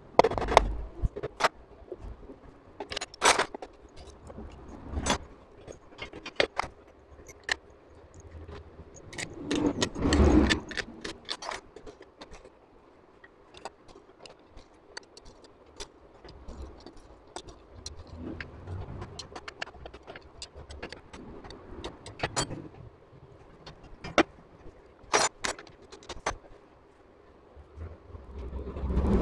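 Small metal engine parts and tools clinking, tapping and scraping against a motorcycle engine's aluminium crankcase as it is assembled by hand, in irregular sharp clicks. About ten seconds in comes a louder scrape lasting about a second.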